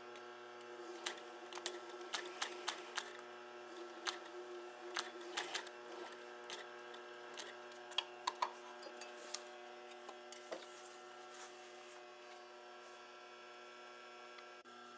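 Industrial sewing machine stitching leather piping: a steady electric hum from its motor, with irregular sharp clicks and knocks from the machine and the leather through the first ten seconds or so.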